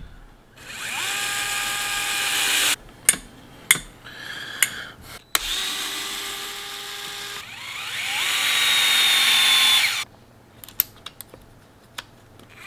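DeWalt electric screwdriver running in two bursts of a few seconds each, its whine rising as it spins up, driving droop screws into the plastic suspension arms of an RC truck. Sharp clicks and knocks of handling come between the bursts and near the end.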